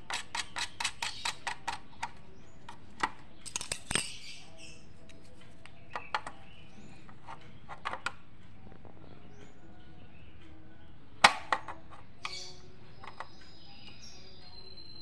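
Small metal clicks and clinks as ring nuts are fitted onto an audio mixer's jack sockets: a quick run of clicks in the first two seconds, then scattered clinks, the loudest a sharp pair about eleven seconds in.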